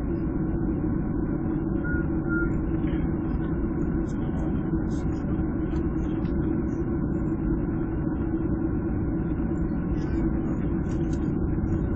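Jet airliner's engines running at a steady low power as it taxis, heard from inside the passenger cabin: an even rumble with a steady hum.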